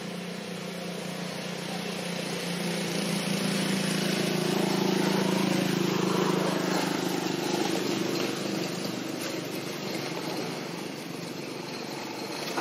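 A motor vehicle's engine running with a steady low hum. It grows louder toward the middle and then fades.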